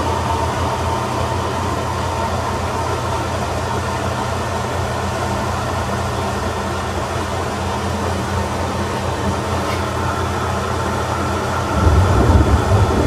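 Atlas Copco SF4 oil-free air compressor running steadily under load, pumping up pressure against a closed outlet valve toward its 6.7 bar cut-out: a steady hum with a faint whine above it. A louder low rumble swells in about a second before the end.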